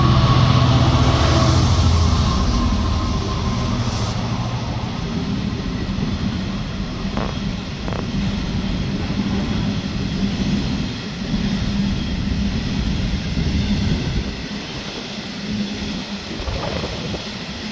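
Class 66 diesel locomotive's EMD two-stroke V12 engine running loudly as it passes, fading after the first few seconds. A long rake of HRA hopper wagons then rolls by with steady wheel noise and a couple of sharp clicks.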